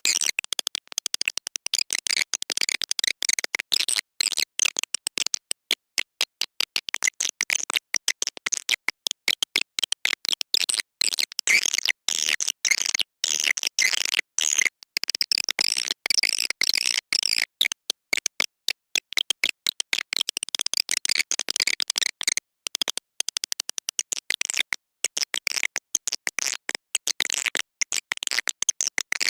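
Swiftlet call lure recording: dense, rapid, high-pitched twittering and chirping of swiftlets, chopped by many brief gaps, of the kind played to draw swiftlets into a swiftlet house.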